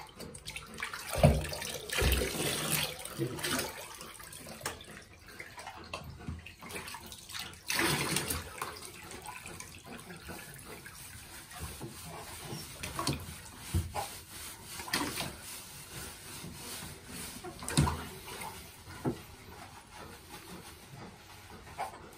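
Bathwater splashing and sloshing in a tub around a large wet malamute as it is rinsed and scrubbed by hand. The sound comes in uneven bursts, with the loudest splashes in the first few seconds and again about eight seconds in, and a few short knocks.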